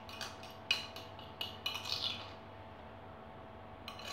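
Metal cutlery clinking and scraping against a ceramic plate while scooping up stew: a quick run of clinks in the first two seconds, then a couple more near the end.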